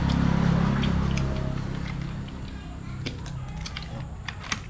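A low steady hum fades out over the first two seconds. It is followed by a few sharp clicks and cracks, as a boiled crab's shell is broken open for eating.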